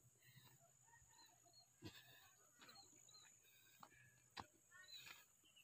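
Near silence: faint outdoor ambience with a few faint, short high chirps and soft clicks scattered through it.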